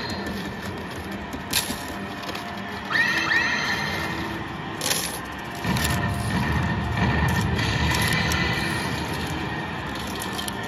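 Fortune Trinity 2 medal-pusher cabinet playing its bonus-event sound effects over game music: sharp hits, a rising sweep about three seconds in, then a low rumble from about six seconds in.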